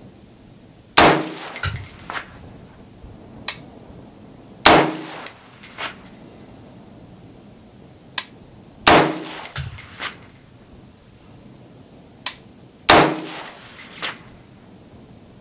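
Four rifle shots from a 6.8 SPC AR-15 SASS rifle with a 50-port compensator, fired one at a time about four seconds apart, each with a short ringing tail. A few much fainter sharp cracks fall between the shots.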